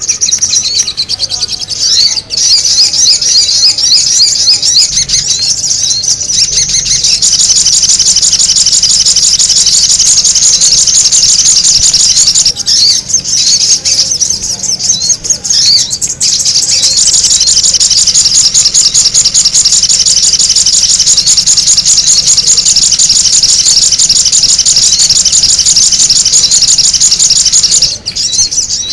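Sogon bird calling in a fast, almost unbroken run of high chirping notes, with a couple of short breaks about halfway through.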